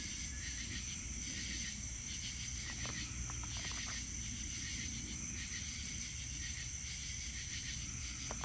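Insects chirping steadily in the background, a high even drone with a soft pulse repeating about once a second, with a few faint short clicks.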